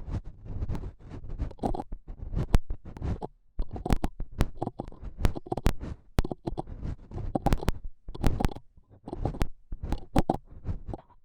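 Close-miked ASMR trigger sounds: irregular rubbing and scratching strokes against the microphone, dense and low, with many sharp clicks through them.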